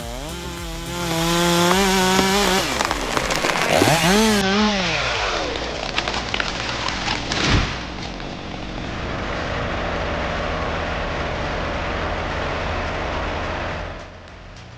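Chainsaw engine revving up and falling back several times. It is followed by a steadier stretch of saw and machine noise with one sharp crack about seven and a half seconds in.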